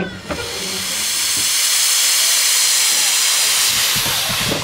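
Steam hissing steadily as a 15-inch gauge steam locomotive vents steam, lasting about four seconds before cutting off suddenly.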